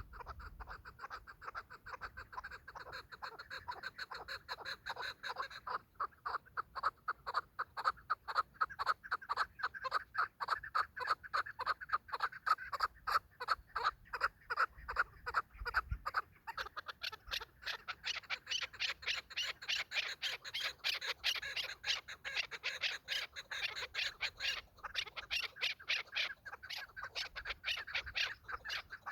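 Chukar partridges calling: a long, rapid run of clucking chuk-chuk notes. About halfway through, the calling shifts to higher, brighter notes.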